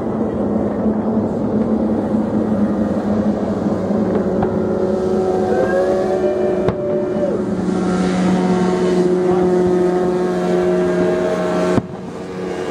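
Motorboat engine droning steadily, its tones shifting in pitch as it runs on the water, with one sharp firework bang partway through.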